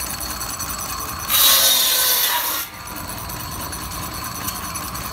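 Belt-driven buzz saw, powered by a scale Case steam traction engine, spinning steadily, then cutting through wood for about a second and a half, starting a little over a second in.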